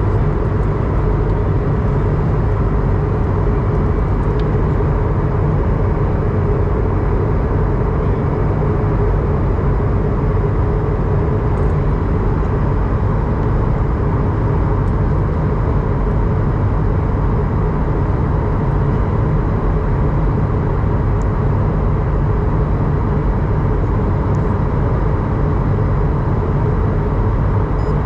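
Steady airliner cabin noise inside an Airbus A220-100: an even rumble of its turbofan engines and airflow, with a faint steady hum above it and no changes.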